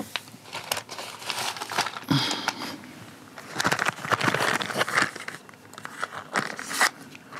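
Hard plastic parts of a robot vacuum's housing being handled and worked apart: a run of clicks, creaks and crinkling, busiest around the middle.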